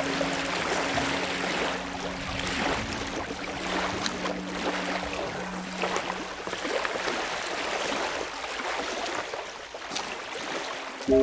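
Small waves lapping against a gravel lakeshore: a steady wash of water broken by many small splashes.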